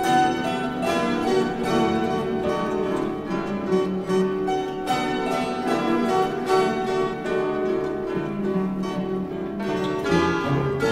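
An ensemble of banduras, Ukrainian plucked lutes, playing an instrumental dance tune: many strings plucked together in rapid notes.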